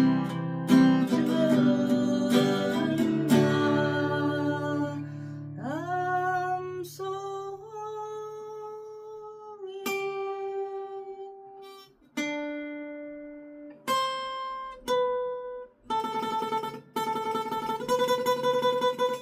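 Acoustic guitar playing the closing outro of a song: a few seconds of strummed chords, then single picked melody notes that ring out, some sliding up in pitch, and a quicker picked phrase near the end.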